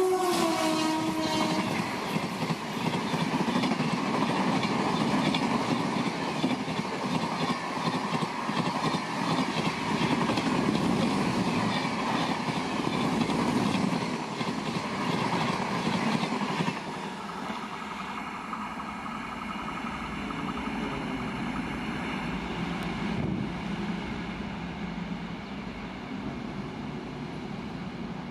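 An electric locomotive-hauled express train passing at high speed: its horn note drops in pitch and stops about a second in as the locomotive goes by, then the coaches rush past loudly until about two-thirds of the way through, when the sound falls away and fades as the train recedes.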